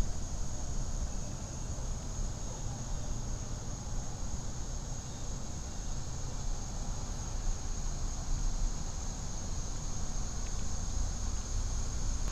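Steady high-pitched insect chorus, one unbroken shrill tone, over a low rumble.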